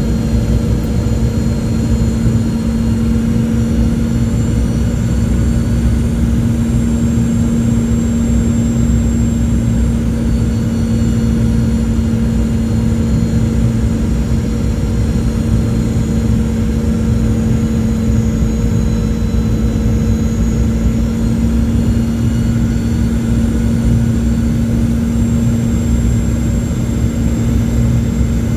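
Steady cabin noise of a Boeing 717-200 on approach, heard from a window seat: a low rumble of rushing air and the rear-mounted Rolls-Royce BR715 turbofans, with a steady low hum and faint high whines above it.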